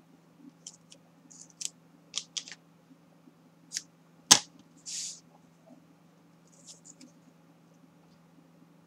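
Double-sided tape being pulled off its roll and pressed along the edge of a cardboard sheet: scattered small crackles and clicks, one sharp snap about four seconds in, then a short rasp, with a few faint clicks near the end.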